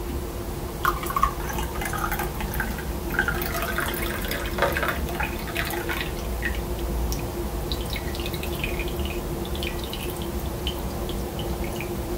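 Brewed coffee pouring from a glass French press (IKEA UPPHETTA) through its plunger filter into a ceramic mug: a splashing stream starting about a second in that thins to scattered drips and trickles as the press drains.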